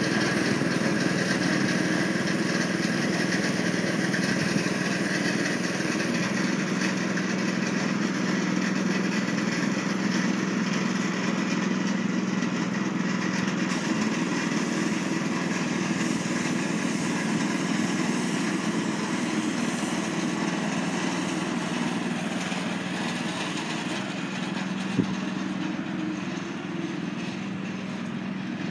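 An engine running steadily at idle: a constant, even hum that gradually gets quieter. There is a single sharp click about 25 seconds in.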